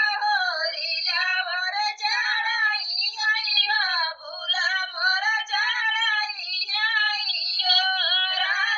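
A single high-pitched voice singing a sohar, the Hindi folk song sung for a child's birth, in long wavering phrases with short breaths between them.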